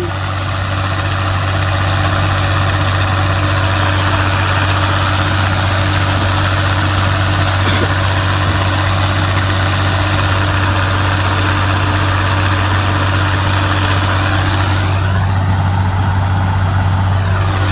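Gleaner combine's engine and unloading auger running steadily as corn is emptied from the grain tank into a grain cart: a loud, even drone with a deep hum. About fifteen seconds in the sound briefly shifts and swells for a couple of seconds, then settles back.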